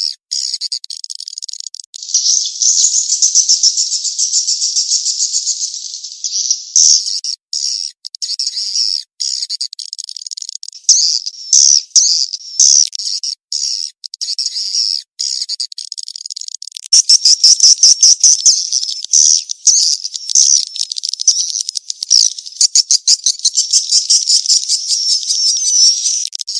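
Edible-nest swiftlets twittering: a high, rapid chattering and buzzy trilling in long stretches, broken by short abrupt gaps. It is a swiftlet lure call of the mating-chase type, played to draw swiftlets into a nesting house.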